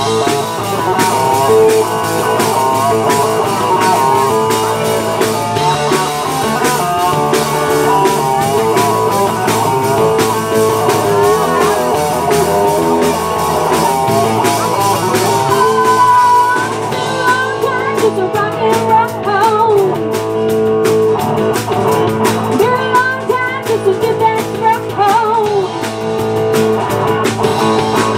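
Live rock band playing: a woman sings lead over electric and acoustic guitars and a drum kit.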